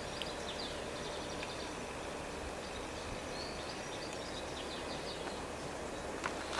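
Steady outdoor background noise with small birds chirping faintly several times, and a short sharp click near the end.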